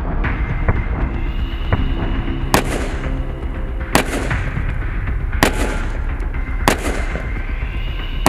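Single rifle shots, one about every second and a half, each with a short echo, with two fainter cracks in the first two seconds, over background music.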